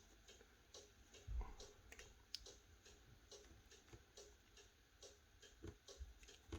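Faint light ticking clicks at a fairly even pace of about two or three a second, with a soft low knock about a second and a half in.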